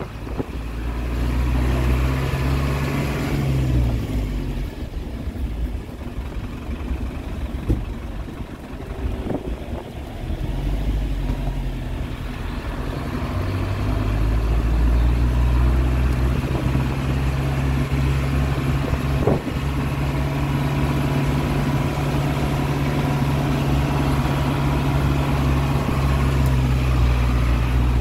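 Game-drive truck's engine running as it drives over a dirt track, with a steady rumble. The engine note drops about three seconds in, fades back for several seconds, then comes up again and holds steady from about halfway, with a couple of short knocks along the way.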